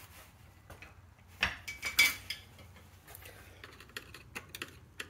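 A screwdriver clicking and clinking against hose clamps and hoses in an engine bay as a hose is disconnected. There are two sharper knocks about a second and a half and two seconds in.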